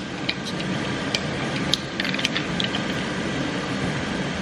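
Cartridges being pressed one at a time into new handgun magazines with stiff springs, an irregular run of sharp metallic clicks and snicks over a steady background hiss.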